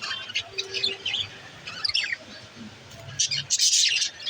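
Pet budgerigars chirping and chattering in quick, high chirps, building to a loud, dense flurry of chirps near the end.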